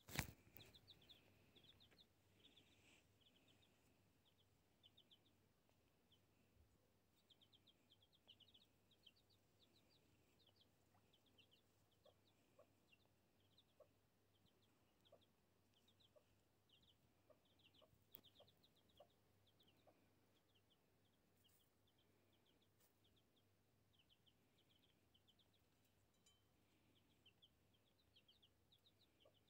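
Domestic chicks peeping faintly in quick runs of short, falling cheeps, with a few low clucks from the mother hen. A brief sharp click at the very start.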